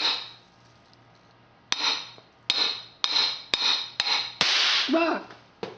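A hammer strikes homemade percussion-cap primer compound on a steel vise, giving several sharp ringing blows about half a second apart. About four and a half seconds in, the primer goes off with a louder crack and a brief hiss, followed by a man's startled "Ah!"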